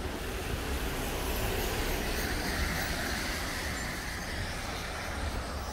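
Strong storm wind buffeting the phone's microphone: a steady low rumble under a rushing hiss that swells in the middle and eases off again.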